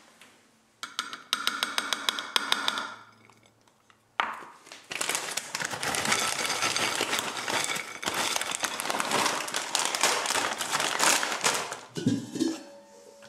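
Tin can tapping and clicking against a ceramic plate as canned sweetcorn is tipped out, then several seconds of crinkling and crackling as corn snack strips are shaken out of a plastic bag onto a plate.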